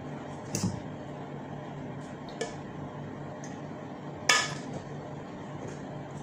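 Metal spoon clinking and scraping against a metal pot while scooping rice: a few short clinks, the loudest about four seconds in with a brief metallic ring. A steady low hum runs underneath.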